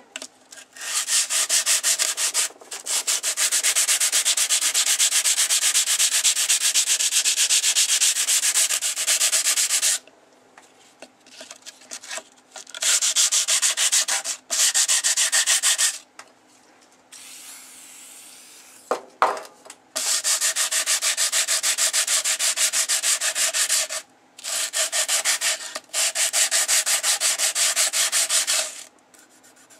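Sandpaper on a hand sanding block scrubbed rapidly back and forth along a rusty steel bow saw blade lubricated with WD-40, taking the rust down to bare metal. It comes in long runs of quick, even strokes with a few short pauses between them.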